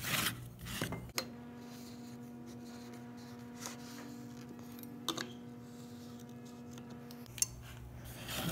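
Scattered light clicks and taps from a metal combination square and pencil handled on a pine board while marking a line. A faint steady hum runs underneath.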